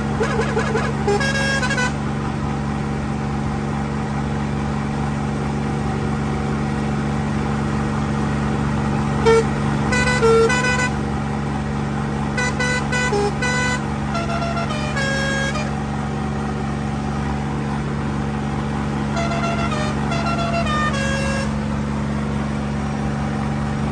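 Sonalika tractor's diesel engine running steadily while driving, with several runs of short multi-tone pressure-horn notes stepping up and down in pitch, the first about a second in and most from about nine seconds on.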